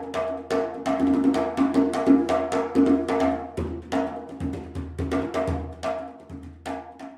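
Short percussion music clip: rapid, uneven strikes, several a second, over a few ringing pitched notes, cutting off abruptly near the end.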